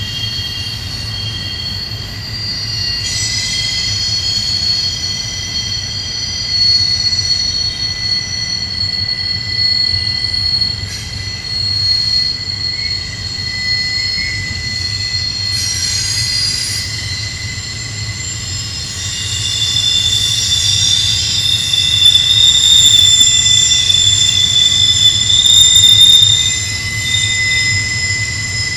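Double-stack intermodal container cars rolling past on a sharp curve. Their wheels squeal steadily in several high tones over a low rumble, and the squeal swells louder for several seconds about two-thirds of the way through. It is wheel flanges grinding against the rail as the train goes around the curve.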